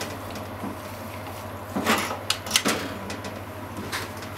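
A wooden utensil stirs ground chicken simmering in sauce in a frying pan, knocking and scraping against the pan several times around two seconds in, with one lighter tap near the end. A steady low hum runs underneath.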